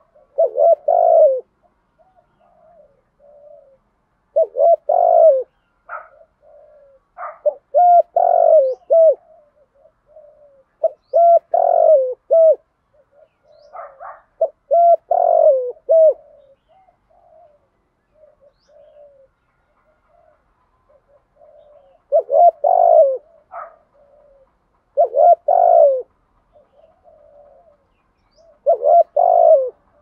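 Spotted dove cooing: the 'thúc gù' coo that dove keepers play as a lure call for wild doves. Short phrases of low coos come about every three seconds, with softer notes between them and a lull of several seconds past the middle.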